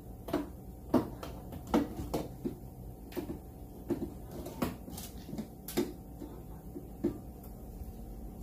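Irregular knocks and clacks of an aftermarket cowl intake pipe being worked into place in a car's engine bay, about a dozen, the loudest about a second in and just before two seconds.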